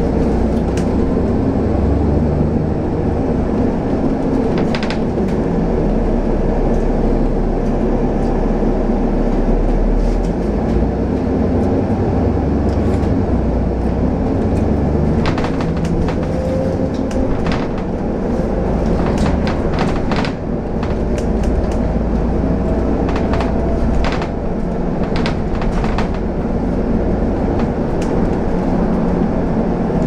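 Double-decker bus running along a street, heard from its upper deck: a steady low engine and road rumble, with the bodywork and windows clicking and rattling, more often in the second half.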